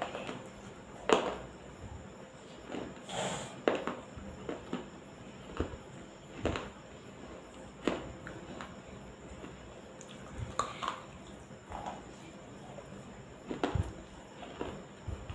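Close-up bites and chewing of soft, damp dark clay: irregular small crunches and mouth clicks, the sharpest about a second in, over a fan's steady hum.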